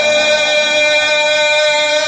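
A man's voice holding one long, steady note in melodic Quran recitation (tilawat), sung into a microphone.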